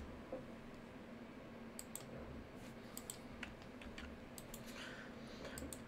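Faint, scattered clicks of a computer mouse and keyboard, a few at a time with short gaps between them.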